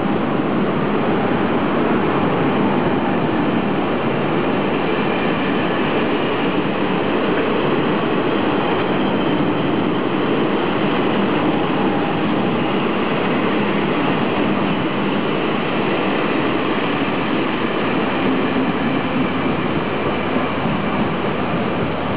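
Locomotive-hauled passenger train's carriages rolling past the platform, a steady rumble of wheels on the rails that eases a little as the last car passes near the end.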